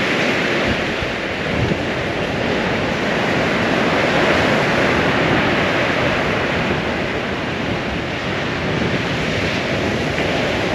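Steady rush of surf breaking on a sandy beach, with wind buffeting the microphone.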